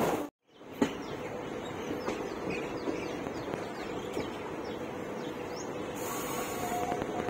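Birds chirping faintly over a steady low hum, with an occasional light tick.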